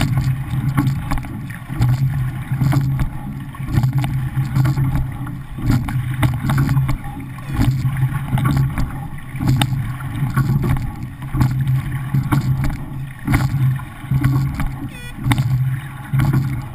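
Water rushing along the hull of a rowing pair shell at race pace, swelling and easing in a repeating rhythm with each stroke, with short knocks from the oars and rigging.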